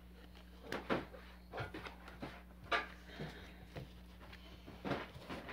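Pokémon trading cards being handled: a scattering of light clicks, taps and rustles as the cards are shuffled and squared into a stack.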